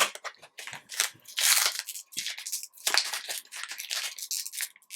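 Trading cards and their pack wrapping being handled: an irregular run of crinkling, rustling and sliding noises, loudest about a second and a half in.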